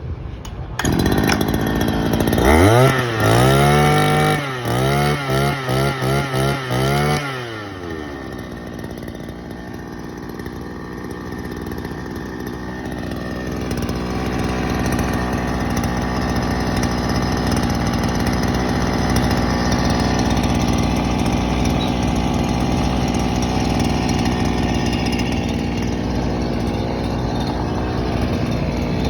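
Small engine of a Roman brush cutter (grass trimmer) running. Its throttle is opened in a long rev and then blipped about half a dozen times in quick succession. About eight seconds in it drops back and settles into steady, lower running that slowly gets a little louder.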